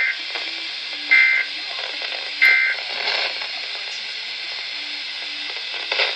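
Radio emergency-alert data bursts: three short two-tone digital chirps about 1.2 s apart, typical of the SAME header that opens a weather-radio warning. They sound over steady static hiss from weak reception.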